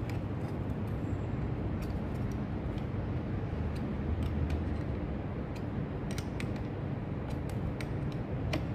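Small, irregular metallic clicks and taps of a spanner working a nut and spring washer onto a winch control-box terminal, most of them in the second half. A steady low rumble runs underneath.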